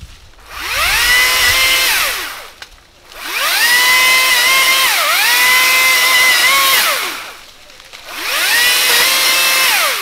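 Makita DUA301 cordless telescopic pole saw's brushless motor and chain running in three bursts, each rising in pitch as it speeds up, holding, then winding down. In the middle, longest burst the pitch dips briefly about five seconds in, as the chain loads in a cut.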